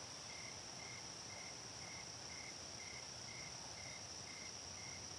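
Faint insect chorus in a summer meadow: a steady high-pitched trill, with a lower cricket-like chirp repeating evenly about twice a second.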